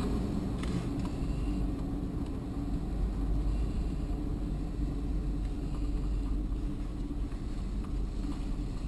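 Engine and road noise of a car heard from inside the cabin as it drives slowly, steady and low-pitched.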